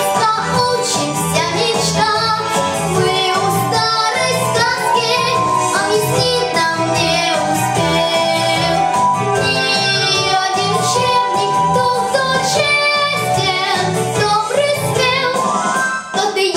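A young girl singing a Russian song solo over backing music with a steady beat.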